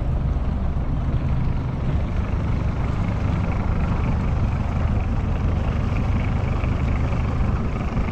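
A small commercial fishing boat's engine running steadily at low speed as the boat motors away.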